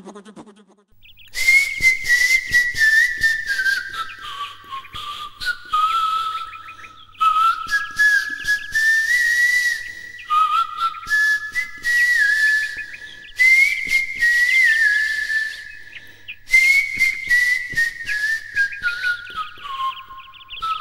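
A tune whistled in short phrases that step down in pitch and start again higher, with a scratchy, crackly rustle coming and going alongside the phrases.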